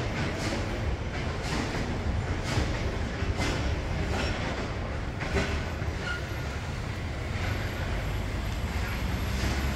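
Busy street ambience heard while walking: a steady low rumble with soft footsteps about once a second.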